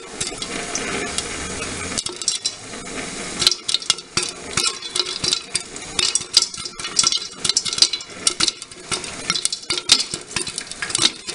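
Popcorn popping in a glass-lidded pan on a hotplate: a steady sizzle with sharp pops, the pops coming thicker from about three seconds in.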